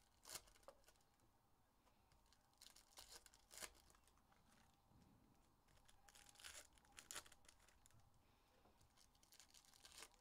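Faint crinkling and tearing of plastic trading card pack wrappers being opened and cards handled, coming in several short spells of crackle.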